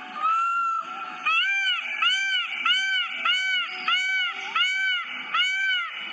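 Peacock (Indian peafowl) calling: one drawn-out call, then a rapid series of about eight loud, arched calls at roughly two a second, over background music.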